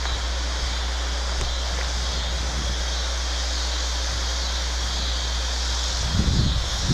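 A steady, dense chorus of crickets. About six seconds in, wind starts buffeting the microphone.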